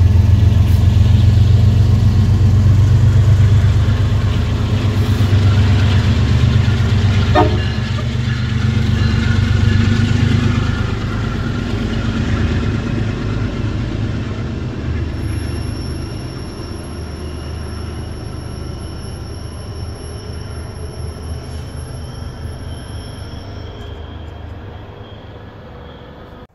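MBTA HSP-46 diesel locomotive and its bilevel coaches pulling away: a heavy low engine hum that fades steadily as the train recedes, with a single clank about a third of the way in.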